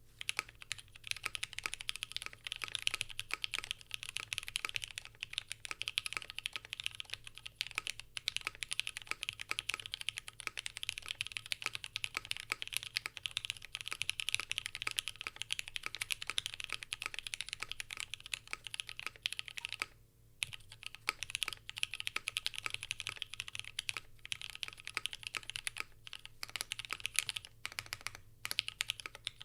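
Fast typing on an ai03 Polaris custom mechanical keyboard with lubed Lavender switches on an FR4 plate and GMK keycaps: a dense, continuous run of keystrokes, with a short pause about twenty seconds in and a few brief gaps near the end.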